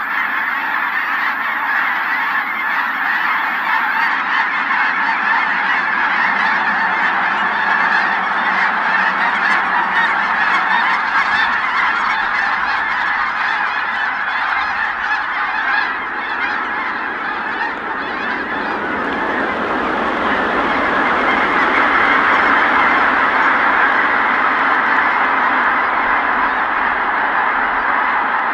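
A large flock of Ross's geese calling all at once: a dense, unbroken din of high honks. It eases slightly a little past halfway, then swells again for the rest.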